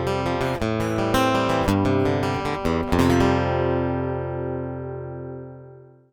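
Guild F-250CE Deluxe jumbo acoustic guitar being played: a quick run of plucked notes and chords, then a final chord about three seconds in, left to ring and fade away almost to silence near the end.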